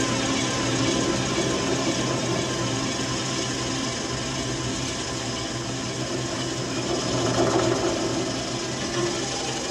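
Bowed cello run live through computer effects processing, heard as a dense, noisy wash of sound over a steady low drone.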